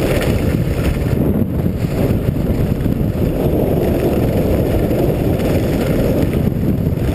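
Wind rumbling and buffeting on the camera's microphone during a fast downhill ski run, mixed with the skis running over packed snow. It is a steady, loud, low rumble with no break.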